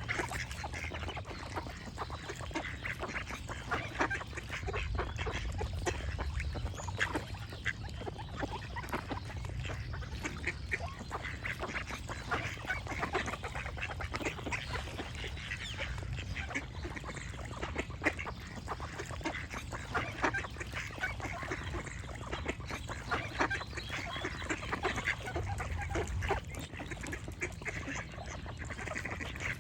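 A flock of ducks quacking continuously, many short calls overlapping, over a steady low rumble.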